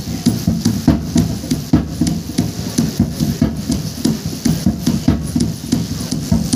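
Percussion accompanying a Rongmei folk dance: a steady, even beat of drum strikes with sharp clicking hits, about two to three beats a second.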